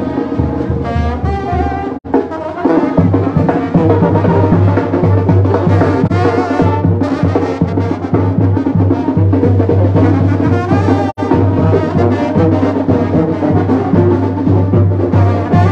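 Brass band music with drums and a steady low bass line. It cuts out for an instant twice.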